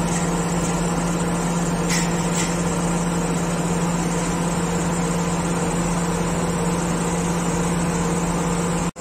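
XCMG truck crane's diesel engine running steadily, with a constant low hum over the engine noise. The sound cuts out for an instant near the end.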